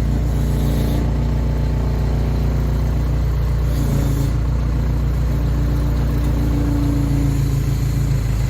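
Case 580K backhoe's diesel engine running at idle while the hydraulics dig, lugging down under the load as if about to stall: the throttle is at idle and the bucket is taking a big scoop of shale.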